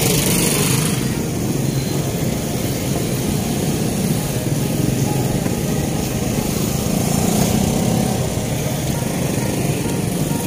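Street traffic: small motorcycle and motorcycle-tricycle engines running close by in a steady mix, with wind rumbling on the microphone of a moving bicycle.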